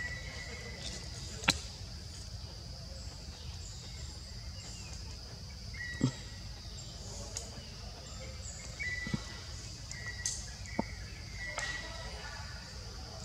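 Forest ambience: a steady high-pitched insect drone over a low rumble, with several short chirps and a few sharp clicks, the loudest about one and a half seconds in and again midway.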